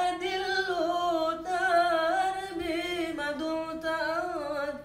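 A man singing a sholawat (Islamic devotional song) unaccompanied, one voice holding long notes that waver and turn in pitch.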